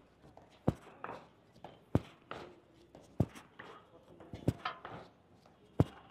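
Sharp pops of a ball being hit back and forth, about one every second and a half, with faint voices in the background.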